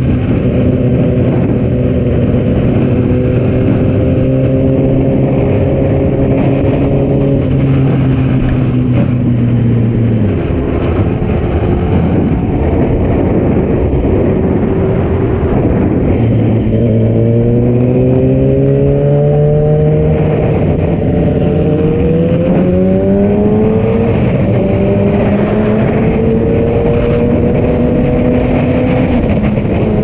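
Sport motorcycle engine heard from the rider's position, over steady wind noise on the microphone. It cruises steadily, then the throttle closes about a third of the way in and the bike coasts for several seconds. It then accelerates, rising in pitch in steps as it pulls through the gears, and settles back to a steady cruise near the end.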